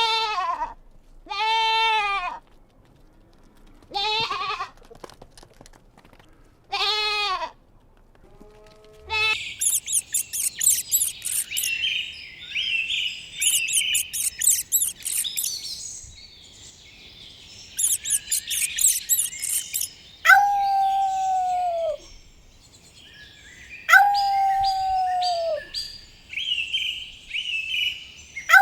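Farm animals calling: five short bleats in the first nine seconds, then rapid high bird chirping, then three long calls that slide down in pitch.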